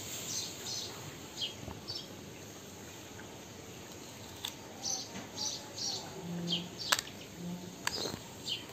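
Fine-toothed wooden nit comb scraping through hair close to the scalp in short, quick strokes, with a few sharp clicks in the second half.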